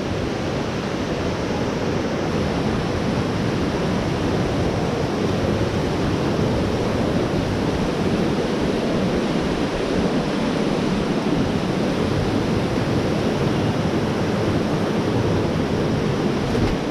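Steady rushing of falling water from the waterfall, an even unbroken roar with no change.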